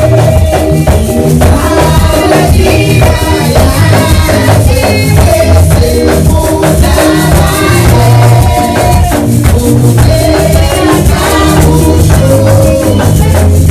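Church congregation singing a Swahili hymn together, led by singers on microphones through a PA loudspeaker, over a heavy bass, with hand claps and a shaker keeping a steady beat.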